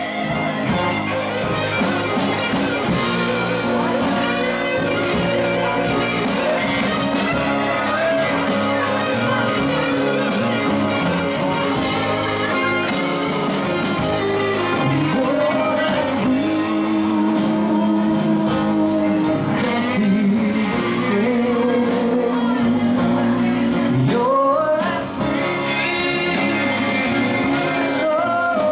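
Live band playing a song, with electric guitar, acoustic guitar and electric bass, and a man singing lead.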